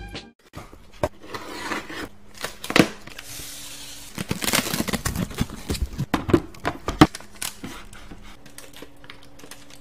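A cardboard shipping box and its packaging being handled and opened: rustling and tearing with a string of sharp knocks and clicks, two of them louder than the rest.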